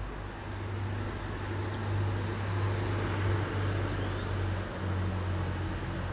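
Steady low rumble in the background, with a few faint high ticks around the middle.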